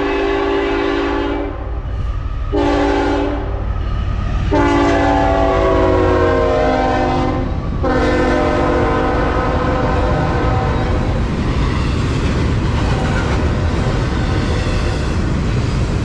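Freight locomotive's multi-note air horn sounding four blasts as it approaches: a short one around 3 s in, then two long ones, the last fading out about 10 s in. The steady rumble and clatter of a double-stack intermodal train's wheels passing follows.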